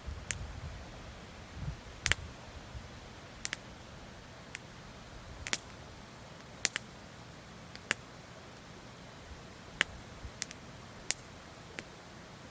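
Wood fire crackling in a campfire stand: sharp, irregular pops roughly once a second over a low, steady background.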